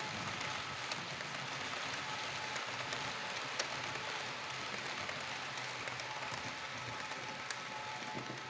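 H0-scale model passenger coaches rolling past on the layout's track: a steady rattling rush of metal wheels on rail, with a few sharp clicks, easing slightly as the last coach passes near the end.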